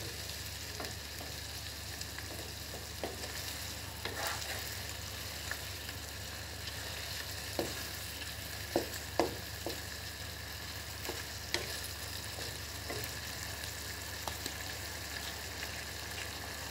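Chicken, tomatoes and a little water sizzling steadily in a karahi, with a wooden spatula knocking and scraping against the pan a handful of times, mostly around the middle.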